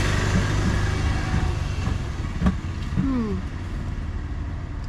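A motor vehicle engine running past with a low rumble that slowly fades away, and a single sharp click about two and a half seconds in.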